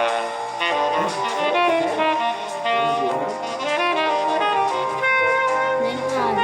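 Background music: a saxophone-led jazz tune with other instruments.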